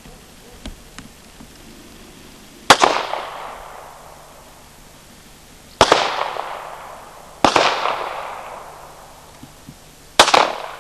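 Four pistol shots a few seconds apart, each followed by an echo that dies away over about a second.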